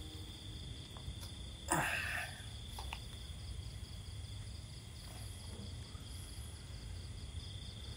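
Night ambience of crickets chirping steadily, with a low hum underneath and one brief noisy swish about two seconds in.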